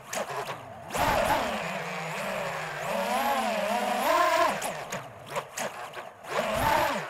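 FPV quadcopter's motors whining, the pitch rising and falling with the throttle, with a few brief dips where the throttle is cut.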